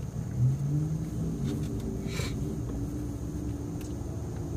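Car running, heard from inside the cabin as a steady low rumble. A louder low hum rises slightly in the first second, and a short hiss comes about two seconds in.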